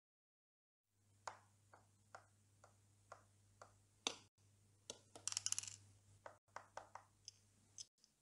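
Faint footstep-like clicks for a walking LEGO stormtrooper minifigure, at first evenly spaced about two a second, then a short rattling run of clicks a little past the middle and a few more scattered clicks, over a low steady hum.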